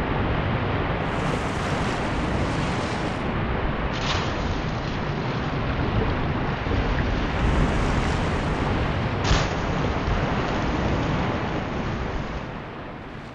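Waves in a tidal pass: a steady rush of rolling, breaking water, with two sharper splashes about four and nine seconds in, easing off near the end.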